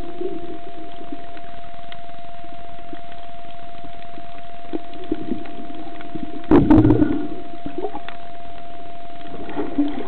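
Underwater recording from a camera in a waterproof housing: a steady hiss with a constant electronic whine, and a short swirl of rumbling water noise about six and a half seconds in.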